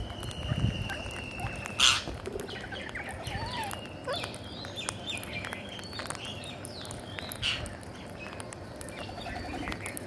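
Flock of rose-ringed parakeets feeding at close range: short chirping calls through the middle, one loud squawk just before two seconds in, and faint clicking of beaks pecking at the grain.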